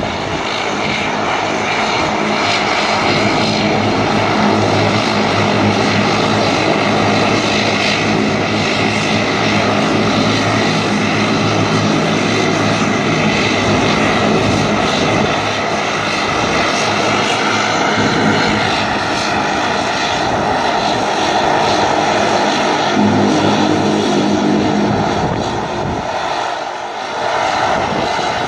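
De Havilland Canada Dash 8-300's twin Pratt & Whitney Canada PW123 turboprops running at taxi power, a steady propeller drone and turbine whine as the aircraft taxis. The level dips briefly near the end.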